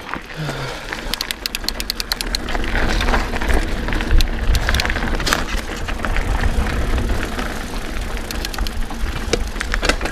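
Mountain bike riding down a dirt singletrack, heard from a handlebar-mounted action camera: wind buffeting the microphone with a steady low rumble, tyres rolling over dirt and dry leaves, and the bike rattling and clicking over bumps, with a quick run of clicks about a second in.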